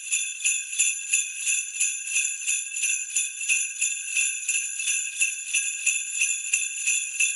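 Jingle bells shaken in a steady, even rhythm, about three shakes a second.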